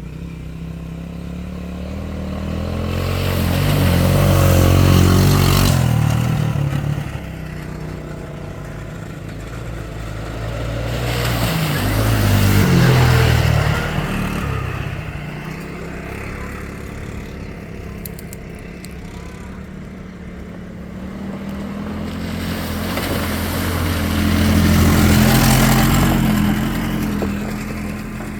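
Off-road vehicles driving past, one after another. Three times the engine sound swells to a peak and fades away, about 5, 13 and 25 seconds in, with engine noise running between the passes.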